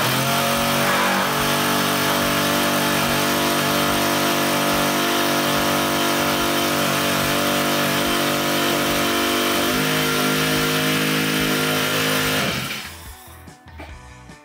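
Small Honda GX four-stroke engine on a fuel transfer pump, starting on a pull of the recoil cord and running steadily, with a slight drop in pitch about ten seconds in, then shutting off and winding down about twelve and a half seconds in.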